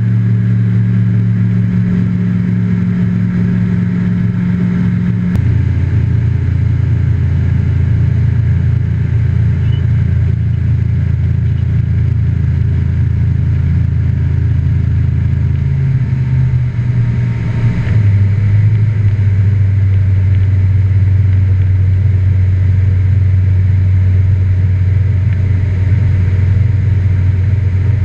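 Light aircraft engine and propeller droning steadily, heard inside the cabin of a Just Aircraft Highlander. The note drops about five seconds in and shifts again a little past halfway as the power is changed.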